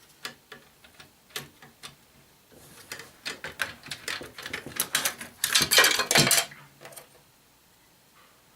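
Small hard parts and tools clicking and clattering on a workbench as an electronics unit is taken apart: scattered single clicks at first, then a busier run of clatter from about three seconds in, settling to quiet about two seconds before the end.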